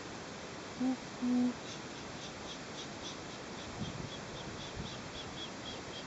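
Two short low hoots about a second in, then insects chirping steadily, about three high chirps a second.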